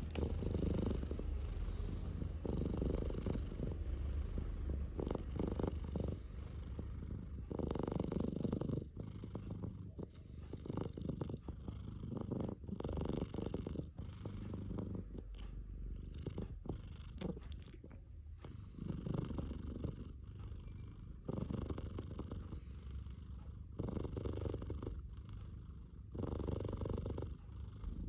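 Domestic cat purring close up: a steady low rumble that swells and fades every couple of seconds.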